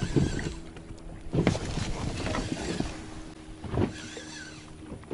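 A few dull knocks and clatters of gear in a small fishing boat, over a steady background hiss.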